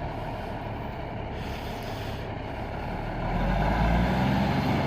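Classic tow truck's dual-stack diesel engine pulling away under load with a delivery truck in tow, getting louder about three seconds in.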